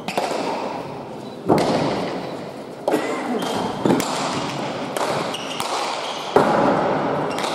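Hand pelota rally: a hard pelota is struck by bare hands and smacks against the fronton walls and floor. There are several sharp cracks, one to two and a half seconds apart, the loudest about a second and a half in and near the end, each ringing out in the hall's echo.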